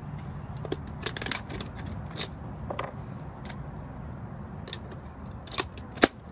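Plastic clicks and clacks of a Nerf blaster being handled, loaded and primed, with a louder sharp snap about six seconds in.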